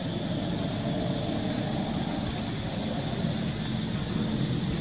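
A steady low drone, like a motor running, with an even high hiss above it.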